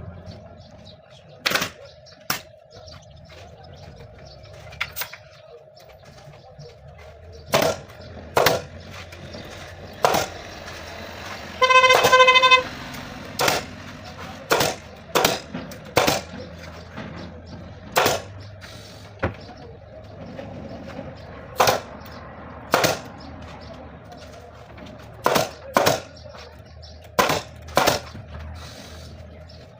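Upholstery staple gun firing at irregular intervals: about twenty sharp shots, often in pairs, as new fabric is fastened to an armchair frame. A short honk, like a car horn, sounds about twelve seconds in.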